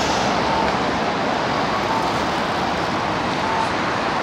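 Steady road traffic noise of a city street, with a faint short tone repeating about every second and a half.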